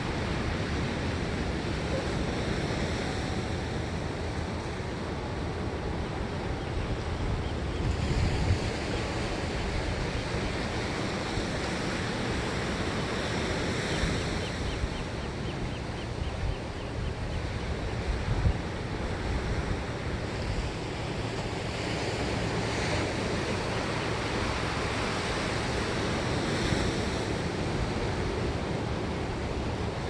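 Pacific Ocean surf breaking and washing ashore: a steady wash of water noise with a deep rumble, swelling with several louder surges of breaking waves.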